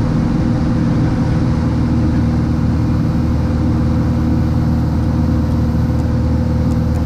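Cessna 182's piston engine and propeller droning steadily in level cruise flight, with no change in power.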